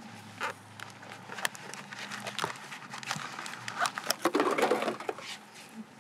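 Footsteps on pavement: scattered short steps and clicks, with a denser cluster of knocks and scrapes about four seconds in.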